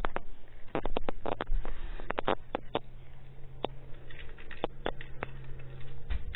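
Handling noise from a phone held close to the microphone: irregular clicks and knocks as it is moved about, over a steady low hum that starts about a second in and stops near the end.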